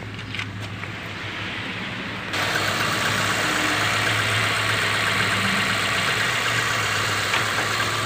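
Chevrolet Chevy's four-cylinder engine idling steadily, freshly started and still cold, warming up. About two seconds in it gets louder and fuller as it is heard from under the open hood instead of from the cabin.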